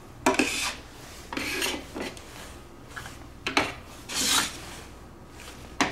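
Plastic LEGO bricks being handled and fitted together: about five short scraping, rattling sounds, with a sharp click near the end.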